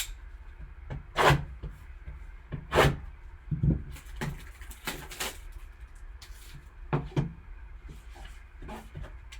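A sealed sports-card box being handled, with scattered taps and rustles of cardboard and packaging every second or so.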